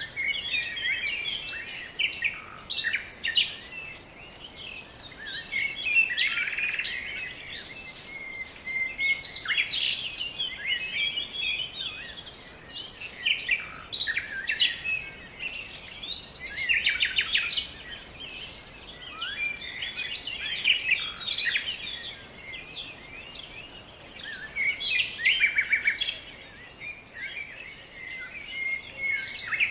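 Birds singing, with many overlapping chirps and trills coming in bursts every few seconds.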